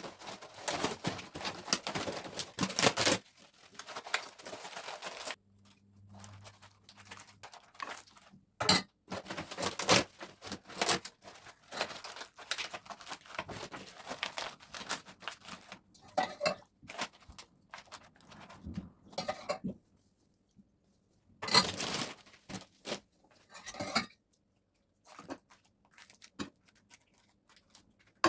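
Irregular rustling, tearing and knocking from hands at work, in bursts with short pauses between them.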